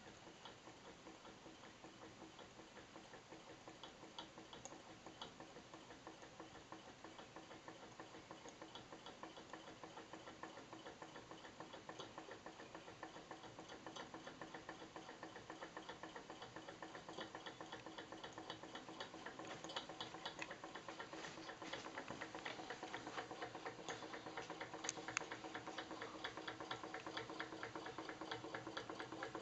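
Model hot air engine running, its moving parts making a fast, even ticking that grows gradually louder.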